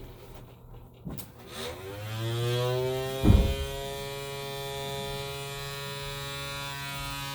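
Homemade siren sounding its attack signal: the tone winds down low, then rises over about two seconds and holds at a steady high pitch. A short thump about three seconds in is the loudest sound, with lighter clicks around a second in.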